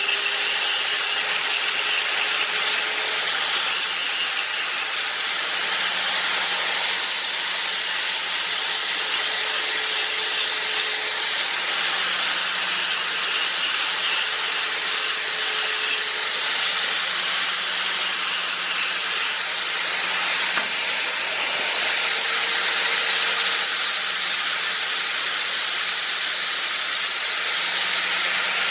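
Angle grinder running continuously under load, its disc grinding a tank flange clean before welding: a steady motor whine under a constant hiss of grinding, the pitch shifting slightly now and then.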